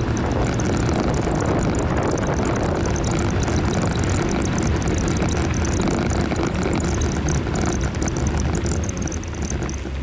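A Jeep driving on an off-road trail: steady engine and tyre noise with a scatter of small crackles, easing off a little near the end.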